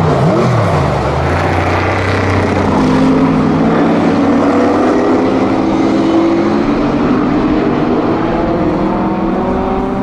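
TVR Griffith race car's V8 engine. Its pitch drops sharply as the car passes, then from about three seconds in the engine note climbs steadily as it accelerates away.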